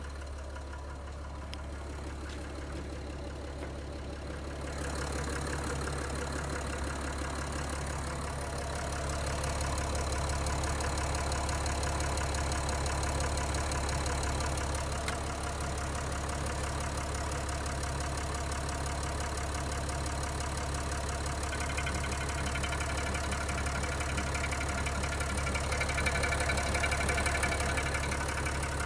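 Nissan Pathfinder's V9X 3.0-litre V6 diesel idling with a knock, the knock the engine has when cold. It gets louder about five seconds in and again near ten seconds.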